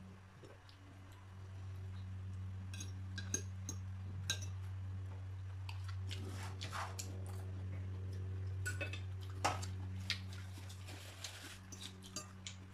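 Scattered light clinks and scrapes of spoons and forks on plates and serving dishes while people eat, over a steady low hum.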